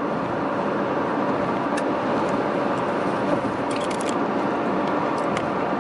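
Steady road and engine noise of a car travelling at speed, heard from inside the cabin, with a few faint clicks.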